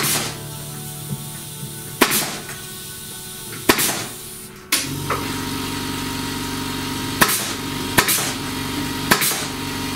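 Pneumatic brad nailer driving 35 mm brads into the wooden frame: six sharp shots, each with a short puff of air, spaced unevenly about one to three seconds apart. Background music plays under them.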